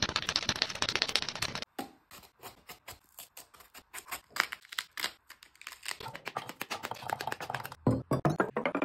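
Close-miked crisp crackling and clicking as grapes and a pomegranate are handled, then near the end a grape drops into an empty glass cup with a knock and a short ringing clink.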